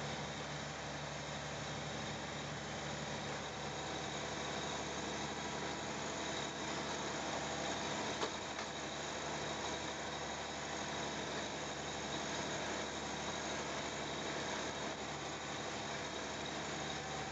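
Fishing boat's engine running steadily under way, heard inside the wheelhouse, mixed with the steady rush of the hull through wind-blown, choppy water. A single knock about eight seconds in.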